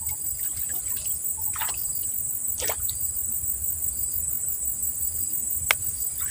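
Steady, high-pitched insect chorus with an even pulsing. A couple of brief swishes come about a second and a half and two and a half seconds in, and a sharp click near the end.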